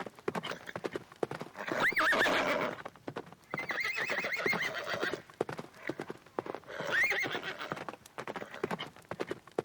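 A horse whinnying three times, the middle call long and quavering, over a steady clatter of hooves.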